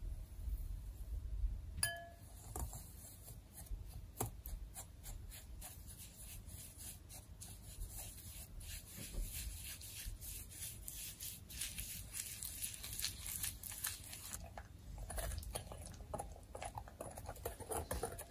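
A single ringing clink of glass about two seconds in, then a wire whisk beating egg yolks and sugar in a glass bowl. Its tines tick and scrape against the glass in quick, irregular clicks that grow busier from about ten seconds in.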